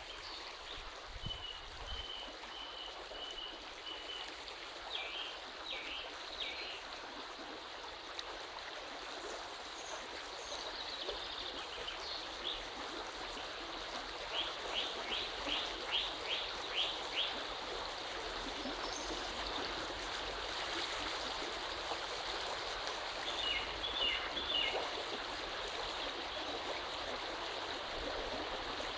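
Birds calling in short runs of quick, high chirps, several times, over a steady rushing noise.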